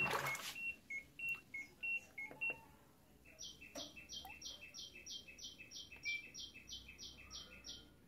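LG Fuzzy Logic top-loading washing machine control panel beeping as its buttons are pressed: about six short beeps alternating between two pitches, then after a short pause a steady run of about fifteen quick beeps, three to four a second.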